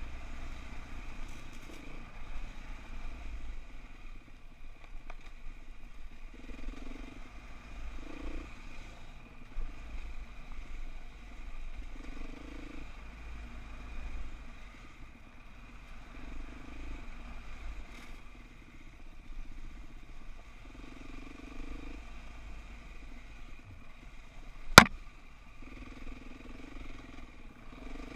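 Dirt bike engine running, rising and falling in short throttle bursts every few seconds on a rough rocky trail. One sharp knock stands out near the end.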